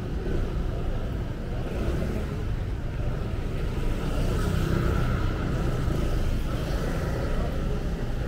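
Street ambience of a busy city road: a steady low rumble of car traffic passing.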